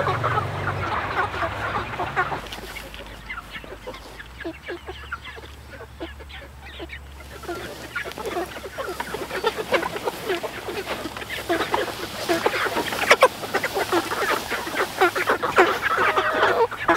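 A flock of chickens in a chicken tractor clucking and squawking, with many short calls overlapping. The calls get busier and louder about halfway through.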